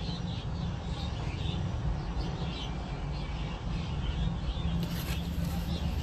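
Swiftlets chirping and twittering in a nesting house, many short high calls overlapping, over a steady low rumble.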